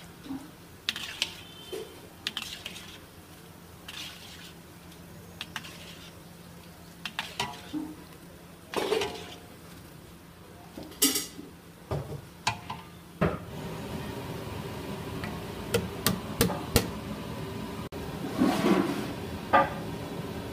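Metal ladle scraping and clinking against a black iron kadai as it stirs and scoops bread cubes deep-frying in oil, over the sizzle of the oil. A louder, steadier hiss sets in about thirteen seconds in.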